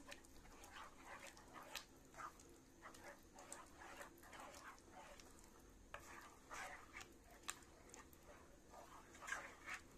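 Wooden spoon stirring grated kaşar cheese into a thick, creamy tomato sauce in a pan: faint, irregular scrapes and strokes against the pan.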